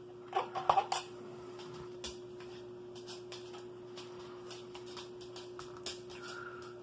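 An MRE cheese spread pouch being cut and handled open: a quick run of sharp clicks about half a second in, then faint crinkling and ticking of the packet. A steady low hum runs underneath.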